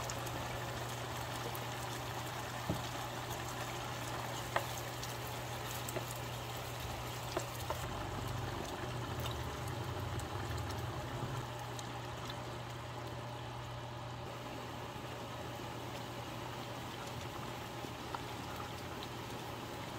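Mapo tofu sauce simmering and bubbling in a pan, with a steady low hum underneath and a few light knocks in the first half.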